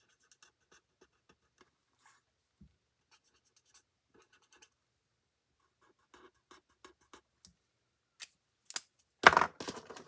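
Faint scratching of an alcohol marker's bullet nib (Stampin' Blends) stroking colour onto stamped cardstock in short, scattered strokes. Near the end come a few louder knocks and clatter of handling as the marker is put down.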